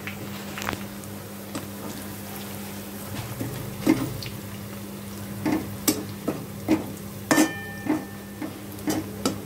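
A metal spatula stirs and scrapes chopped onions frying in a metal wok, with irregular clinks of the spatula on the pan that come faster in the second half. A steady low hum runs underneath.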